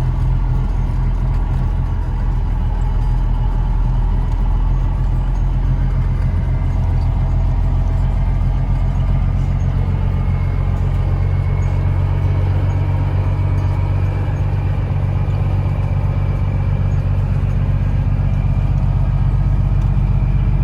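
Diesel engine of a heavy harvest vehicle running steadily while it drives slowly, heard from inside the cab: a constant low drone. A faint high whine comes in about halfway through.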